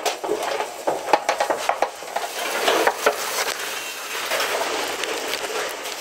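Cut tree branches dragged along dry dirt right past the microphone, leaves rustling and twigs scraping and crackling in quick, dense clicks.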